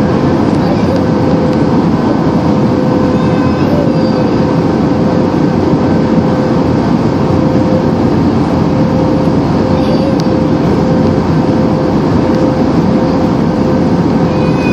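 Steady cabin noise of a jet airliner on its landing approach, heard from a window seat over the wing: engine and rushing air, with a constant hum running under it.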